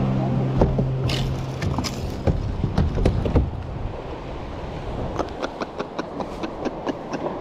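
Background music fading out over the first two seconds, then a steady rushing noise with irregular light knocks and clicks, typical of a small fishing boat at sea.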